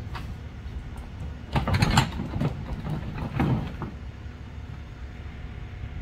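A steady low rumble, as of a vehicle engine, with two louder noisy bursts, one about a second and a half in and one about three and a half seconds in.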